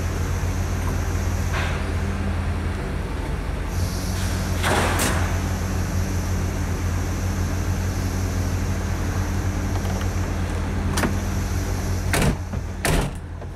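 A steady low motor hum, with several sharp clanks and knocks: one about two seconds in, a longer rattle around five seconds, and a cluster of knocks near the end.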